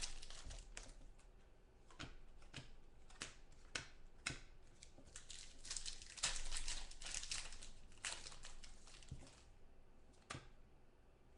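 A trading-card pack wrapper crinkling and tearing as the pack is opened, with cards handled by hand; a faint, irregular string of crackles and clicks.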